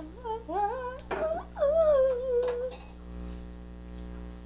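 A person singing a wordless "la la la" tune, ending about three seconds in, with a short knock about a second in; after that only a steady low electrical hum.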